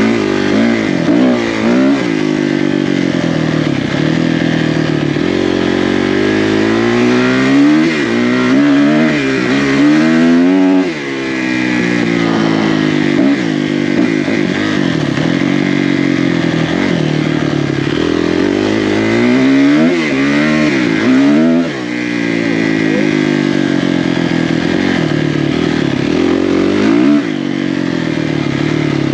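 Dirt bike engine being ridden hard, its pitch climbing in steps as the rider runs up through the gears and dropping sharply each time the throttle is shut off. This happens several times.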